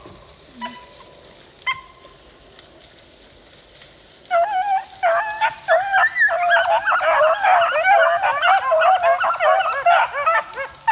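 A pack of beagles breaks into full cry about four seconds in, many hounds baying over one another, the sound of the pack running a rabbit's track. A couple of short single yips come before it.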